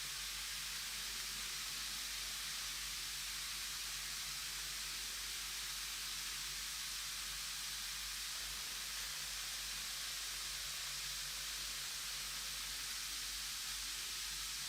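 Large bath bomb fizzing steadily in water as it dissolves: an even hiss.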